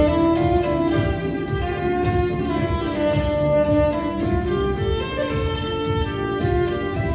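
Solo violin playing a melody of held, changing notes over a low, pulsing accompaniment.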